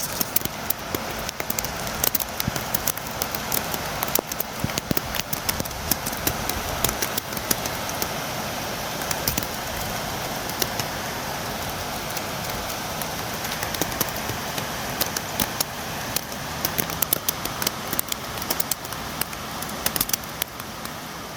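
Steady rain, with many sharp drops ticking on a hard surface.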